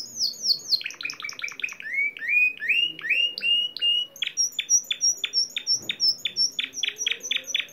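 Spanish Timbrado canary singing a discontinuous-style song: a fast trill, then a run of rising whistled notes, then a series of separate sharp notes at about four or five a second.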